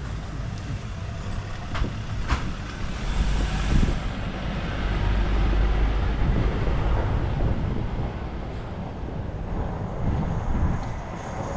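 A train running past, a deep rumble that swells about three seconds in.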